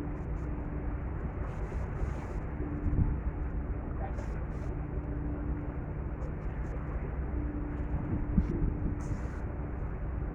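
Staten Island Ferry's engines droning steadily with a low hum that comes and goes, under a wash of wind and water noise, with a couple of brief knocks.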